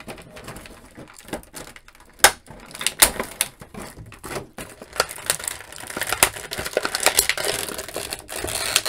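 Clear plastic packaging being handled as an action figure is unboxed: the thin blister tray clicks and crackles, then thin plastic wrapping crinkles steadily as it is peeled off a part in the second half.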